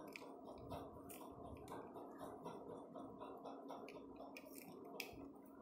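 Faint room tone with a steady low hum and scattered light ticks and clicks, and one sharper click about five seconds in.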